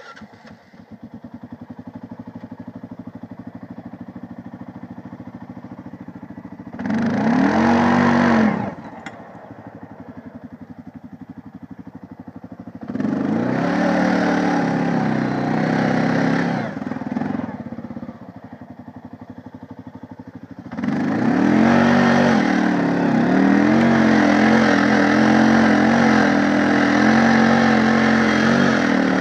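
2009 Honda 500 ATV's single-cylinder four-stroke engine idling, revving up briefly about a quarter of the way in and again for a few seconds near the middle, then pulling at steady higher revs for the last third as the quad is ridden.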